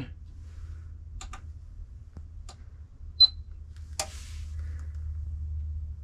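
A few clicks, then a single short high beep about three seconds in, as an Aims Power pure sine inverter is switched on. A low hum runs underneath.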